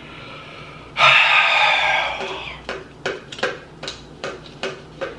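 A loud breathy rush lasting about a second and a half, then rapid rhythmic knocking, about two to three light knocks a second, of two large empty paper cups bumping together as they are bounced.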